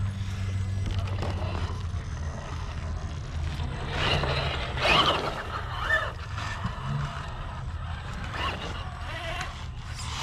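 Radio-controlled rock crawler's electric motor and gears whirring at crawl speed, with irregular knocks and scrapes as its tyres and chassis clamber over rocks, loudest about four to five seconds in.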